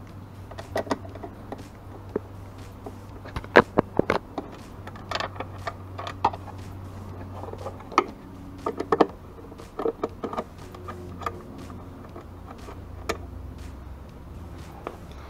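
Irregular clicks, taps and light knocks of a Phillips screwdriver and small screws against a universal 7-inch motorcycle headlight housing as its casing is taken apart, over a faint steady low hum.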